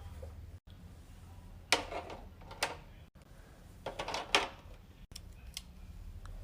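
Fidget toys being handled and placed into a plastic organizer: a handful of short knocks and rustles a second or so apart.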